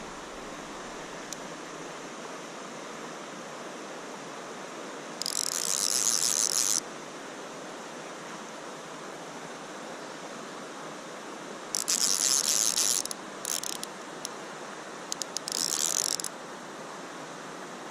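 Fly reel's click-and-pawl drag buzzing as a big rainbow trout runs and pulls line off the reel: one run of about a second and a half some five seconds in, then several shorter runs from about twelve to sixteen seconds in. A steady hiss lies underneath.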